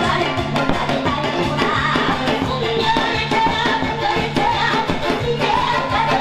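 Janggu, the Korean hourglass drum, beaten rapidly with sticks over loud backing music with a steady beat.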